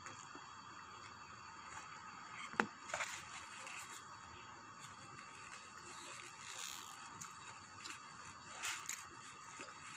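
Faint clicks and scrapes from eating and handling food, over a steady electrical hum; one sharp click comes about two and a half seconds in.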